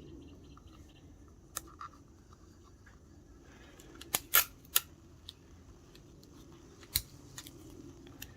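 Sticky tape being cut and pressed onto cardboard model pieces: a few short sharp snips and clicks, three close together about four seconds in and one more near seven seconds.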